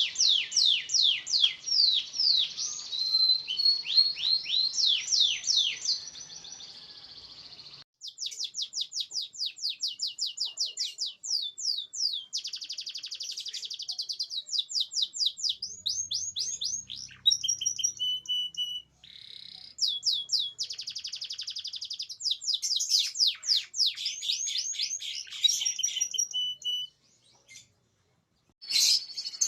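Domestic canary singing: fast, high trills and rolling phrases in long runs. The song breaks off abruptly a few times, as at the edits of a recording, with about a second of near silence near the end.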